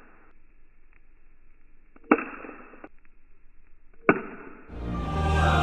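Two sharp snaps of a piezo lighter igniter, built into a candy-box prank shocker, discharging a spark to a fingertip about two seconds apart, each trailing off briefly. Music fades in near the end.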